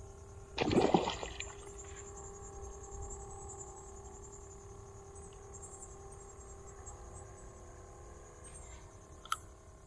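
A splash at the water's surface about a second in, as a small tarpon strikes at a live mullet bait, over a steady high insect buzz. A short sharp click near the end.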